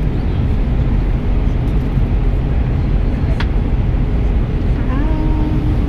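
Steady cabin rumble of an Airbus A321-111 in descent: airflow and CFM56 engine noise heard from a window seat, with a brief click about three and a half seconds in.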